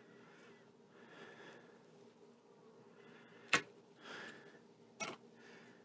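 Quiet handling of a golf grip's Arccos sensor as it is taken off the grip end, with two sharp clicks about three and a half and five seconds in and a soft rustle between them.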